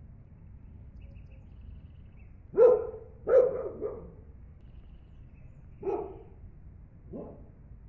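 A dog barking: a sharp bark about two and a half seconds in, a second bark with a couple of short follow-on yaps just after, then two more spaced barks, the last one weaker.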